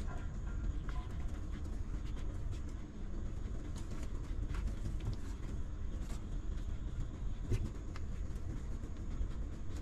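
Newborn puppies suckling at their mother, faint scattered smacking clicks over a steady low rumble.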